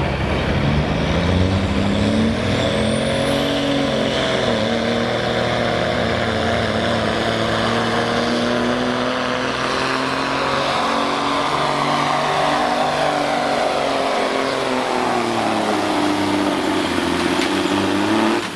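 Semi truck's diesel engine working hard under load while pulling a sled, with a high turbo whistle climbing steeply a couple of seconds in. The engine note slowly sags and dips shortly before the end.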